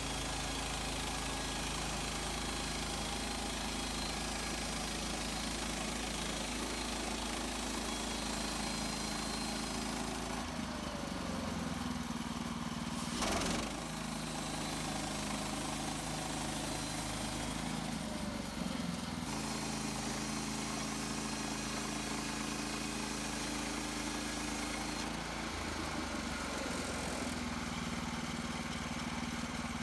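Petrol engine of a Woodland Mills HM130 Max portable bandsaw sawmill running steadily while milling pine, its note shifting a few times. There is one sharp knock about 13 seconds in.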